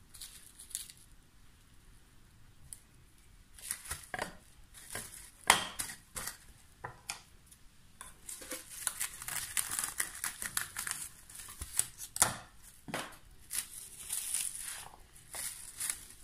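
Plastic cling film crinkling and rustling in irregular spurts as hands press and shift slices of crustless sandwich bread laid on it, with one sharper crackle about five and a half seconds in.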